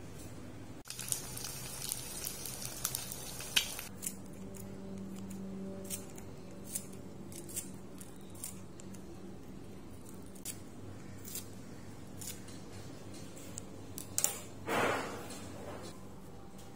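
Light clicks and taps of kitchen handling around plates on a countertop, over a faint steady low hum. Near the end there is one short, louder swish.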